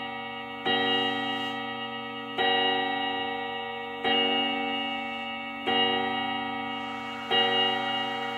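A bell-like chime struck five times at an even pace, about every second and a half. Each stroke starts sharply and rings on, fading until the next one.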